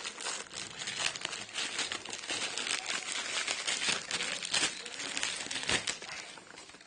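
Packaging crinkling and rustling by hand as an amplifier is unwrapped: a dense run of irregular crackles that thins out near the end.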